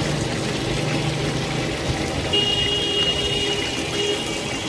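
Marinated chicken pieces frying in shallow oil on a large flat iron pan, the oil sizzling steadily, over street traffic. A steady high-pitched tone sounds from about halfway in for a second and a half.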